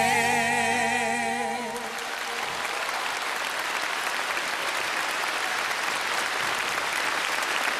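The last sung note of a song, held with vibrato over the band, fades out about two seconds in. A large concert-hall audience then applauds steadily.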